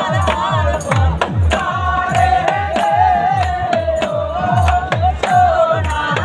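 Men singing a wavering folk melody over a steady hand-drum beat of about three strokes a second, with a jingle ring shaking and hands clapping.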